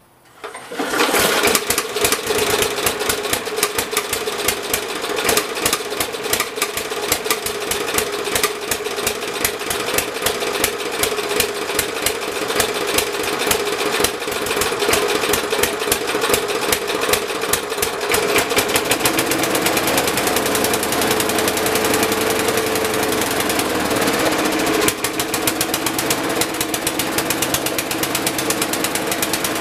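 Briggs & Stratton Classic single-cylinder mower engine starting on a pull of the recoil starter about a second in, then running steadily with rapid, even firing, its carburettor freshly cleaned. Its speed shifts slightly in the last ten seconds.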